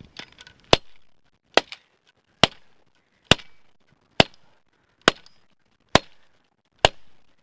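Axe head of a Stansport 6-in-1 survival tool chopping into a cedar tree: eight sharp, evenly spaced chops, a little under one a second.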